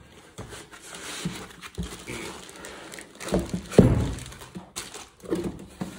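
Unboxing handling sounds: a plastic-bagged subwoofer is worked loose from foam packing inserts and lifted out of a cardboard box. There is irregular plastic crinkling and foam rubbing, with a couple of louder knocks a little past halfway.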